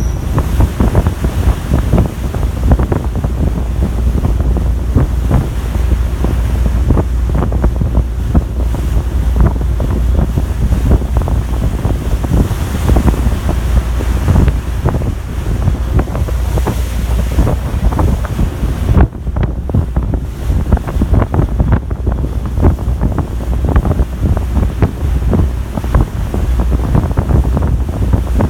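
Wind buffeting the microphone on a moving ferry's deck, gusting and crackling unevenly, over the steady rush of the sea. The wind briefly drops a little past two-thirds of the way through.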